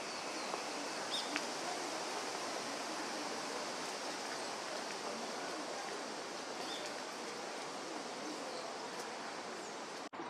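Steady outdoor background hiss, like running water or wind, with a few faint, short bird chirps. The sound cuts out for an instant near the end.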